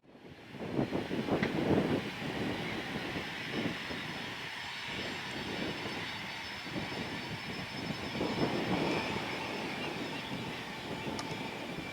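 Cessna Citation CJ2 business jet's twin Williams FJ44 turbofan engines running: a steady high whine over a rushing roar that swells and eases in loudness.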